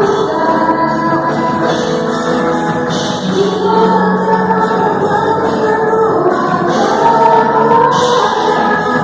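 Group of singers performing a gospel worship song with instrumental accompaniment at a rehearsal, voices holding long sustained notes together.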